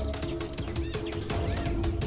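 Background music: sustained held chords over a bass line and a steady percussion beat.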